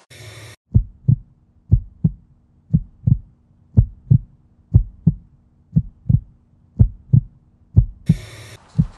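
Heartbeat sound effect: paired lub-dub thumps about once a second over a faint steady low hum, with a short hiss at the start and again near the end.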